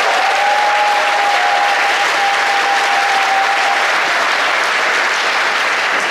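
A congregation applauding steadily, with one long held tone sounding over the clapping for the first few seconds before it fades.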